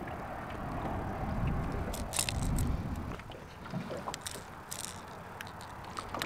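Handling noise of a northern pike being unhooked in a landing net at the side of a small aluminium boat: a low rumble of water and movement for about the first three seconds, then scattered sharp clicks and knocks from the crankbait's hooks and the net frame.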